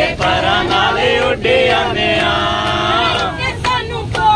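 Voices singing a Hindu devotional song (bhajan) together, with held, wavering sung notes, over a steady low rumble.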